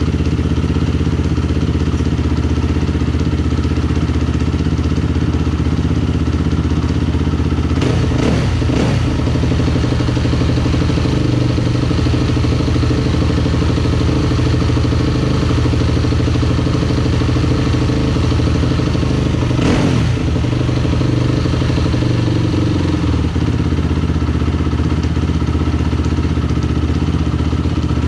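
2001 Yamaha YZ426F's single-cylinder four-stroke engine running steadily at idle after a new cam chain was fitted. There are brief throttle blips about eight and twenty seconds in, and the note runs a little higher in between before settling back lower near the end.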